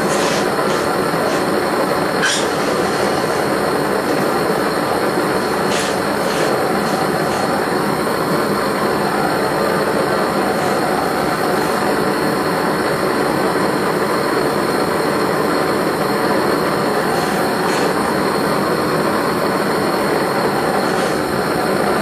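Bernz-O-Matic JT539T swirl-flame propane brazing torch burning steadily into a small melting furnace: a continuous rushing flame noise at full heat. A few faint light clicks come over it, about two seconds in and again around six seconds.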